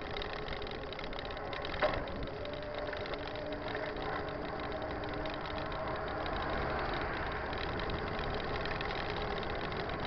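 Steady road and wind noise from a mountain bike riding along a paved highway, with a box truck's engine passing in the opposite lane around the middle. A single sharp click about two seconds in.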